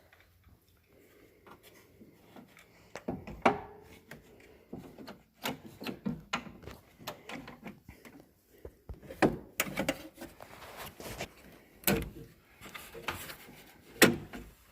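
Parts being handled during a truck door-handle repair: irregular clicks and knocks with scraping and rubbing, several sharper knocks standing out.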